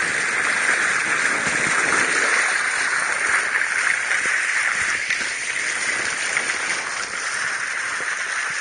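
Water rushing and splashing steadily along the hull of a canoa do Tejo, a traditional Tagus river sailing boat, as it sails along.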